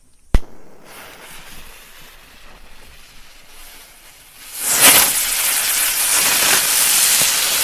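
Pyrogiochi Slimer ground-spinner firework: a sharp click near the start, then the fuse hissing faintly for a few seconds. About four and a half seconds in, the spinner ignites and sprays sparks with a loud, steady hiss.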